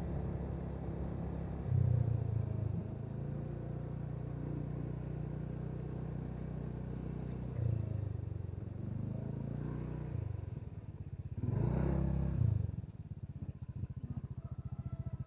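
Motorcycle engine running as it rides along, swelling louder three times with the throttle: about 2 s, 8 s and 12 s in. Near the end it drops to a steady idle putter as the bike slows.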